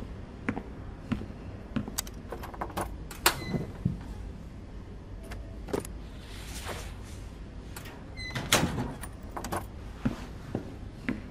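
Footsteps in an even walking rhythm on a hard floor, then metallic clicks and a rattle as a locker door is opened and shut, with footsteps again near the end. A low steady rumble runs underneath.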